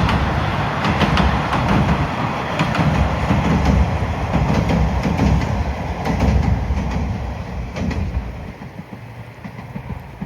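KiHa 40-series diesel railcar running past, its wheels clacking over rail joints under the engine and running noise, the sound falling away over the last couple of seconds.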